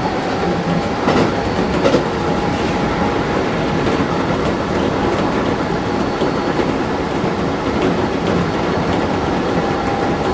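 Keisei 3400 series electric train running, heard from inside a passenger car: a steady rumble of wheels on rail with a faint steady whine, and two wheel clicks over rail joints about one and two seconds in.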